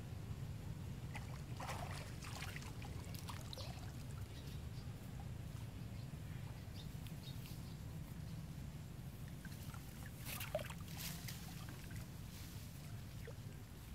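Faint, scattered splashes and lapping water from monkeys swimming, over a steady low rumble. The sharpest splash comes about ten seconds in.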